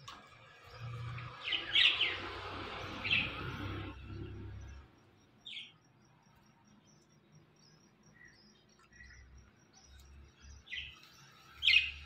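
Indian ringneck parakeets giving short, sharp chirping calls about half a dozen times, loudest about two seconds in and again just before the end.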